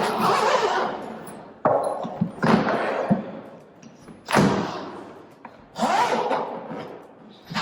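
A new hard-shell suitcase being handled and opened: a series of rustling, scraping strokes, about one every one and a half to two seconds, some starting with a dull thump.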